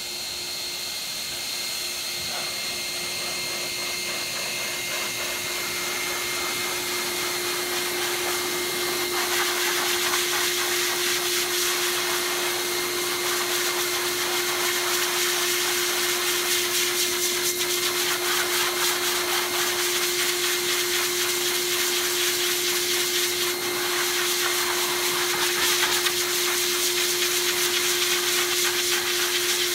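Metro Vac Master Blaster 8 HP force dryer running steadily: a high motor whine over a strong rush of air, blowing out a Siberian husky's shedding undercoat. It grows louder over the first several seconds, then holds.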